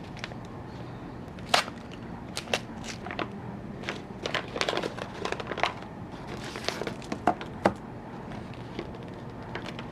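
Irregular sharp clicks and short crinkling noises over a steady low hum, busiest in the middle, with a few louder clicks near the start and toward the end.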